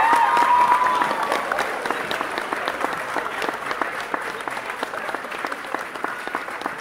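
Large crowd applauding and cheering, dense clapping with loud whistles through the first second and a half; the clapping slowly dies down.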